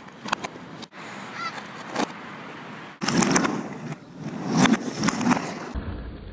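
Skateboard wheels rolling on ramps, with sharp clacks and knocks of the board. A short honk-like call comes about a second and a half in.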